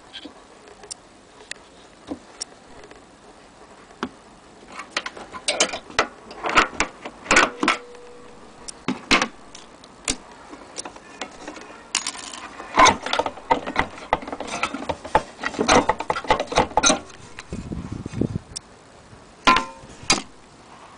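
Metal parts of an HMV Model 102 portable gramophone being handled: irregular clicks, clinks and knocks as the turntable platter and winding crank are moved and set down. There is a brief low scrape near the end.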